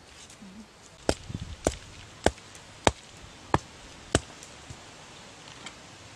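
A stone striking the top of a wooden stake to drive it into the soil: six sharp knocks, evenly spaced a little over half a second apart.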